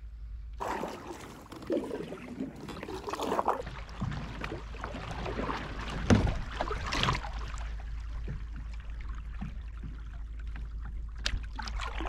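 Kayak paddle strokes dipping and splashing in the water as a sit-on-top kayak is paddled along, an irregular run of splashes with a few louder ones.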